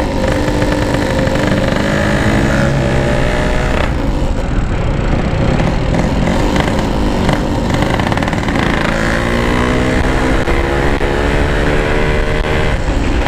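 Yamaha RX-King's 135cc two-stroke single-cylinder engine under way, its pitch climbing as the bike accelerates, dropping at a gear change about four seconds in, and climbing again in the second half. Wind noise on the microphone from the open visor.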